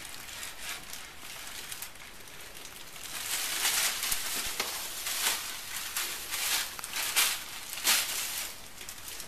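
Thin plastic shopping bag crinkling and rustling as a cat moves about with the bag caught around its body, getting louder and coming in bursts from about three seconds in.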